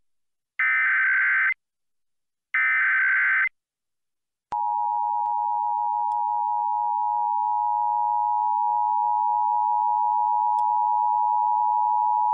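Emergency Alert System broadcast: two one-second bursts of screeching SAME header data tones, a second apart, which encode the alert, then from about four and a half seconds in the steady two-tone EAS attention signal, held unbroken.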